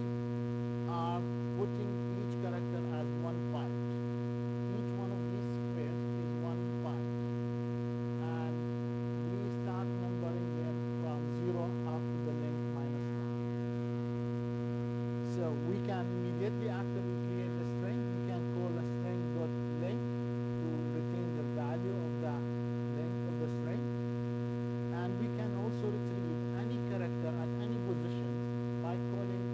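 Steady electrical mains hum: a constant low buzz with a stack of overtones, unchanging throughout.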